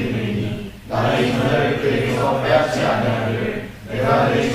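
A congregation reading a Bible passage aloud in unison, many voices speaking together, with two short pauses between phrases: one about a second in and one near the end.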